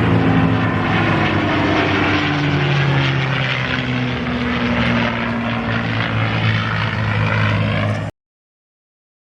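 P-51D Mustang's Packard Merlin V-12 engine and propeller running at display power as the fighter flies past, the engine note shifting in pitch as it passes. The sound cuts off suddenly about eight seconds in.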